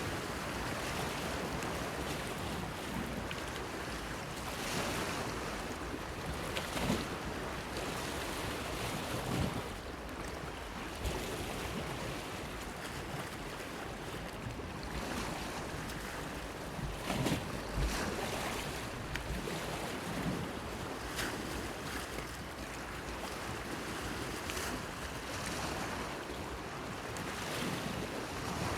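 Sea waves washing against a breakwater pier: a steady wash with short, irregular sharper splashes every few seconds.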